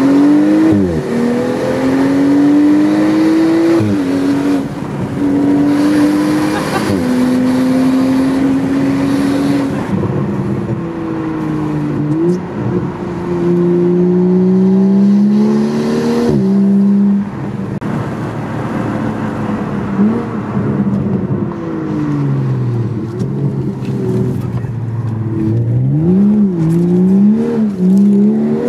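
Straight-piped BMW M235i's N55 turbocharged inline-six, with no exhaust from the downpipe back, heard from inside the cabin while driving. The engine note climbs and drops sharply several times as the 8-speed automatic shifts up, falls away low in the middle, then rises and falls in quick blips near the end.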